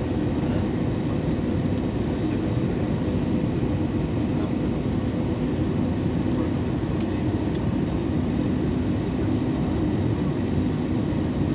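Steady low rumble of cabin noise inside an Airbus A320 descending on approach: engine and airflow noise with a faint steady hum.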